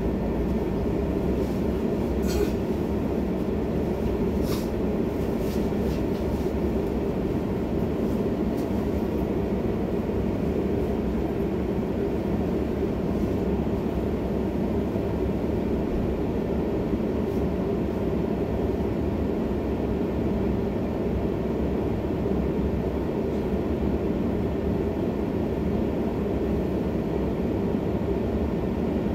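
Steady low rumble and hum of a Helsinki city tram, heard from inside the car. A couple of brief sharp clicks come about two and four and a half seconds in.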